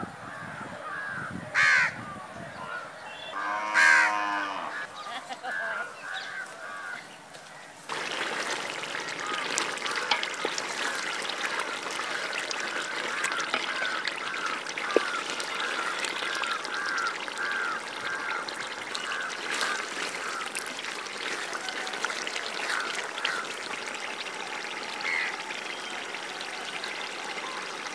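Animal or bird calls for the first few seconds, one loud honking call about four seconds in. From about eight seconds, a pot of prawn and palm-sprout curry bubbling at a simmer: a steady hiss with many small pops.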